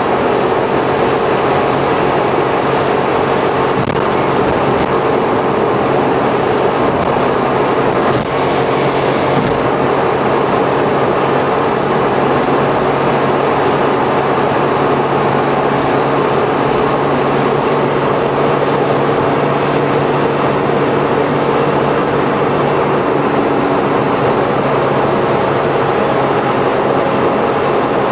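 Suzuki Every kei van with Auto Gear Shift, heard from inside the bare metal cargo area while cruising at expressway speed. Its engine and drivetrain make a steady, heavy, low hum under constant tyre and wind noise, a sound likened to the low-toned motor of an old electric train.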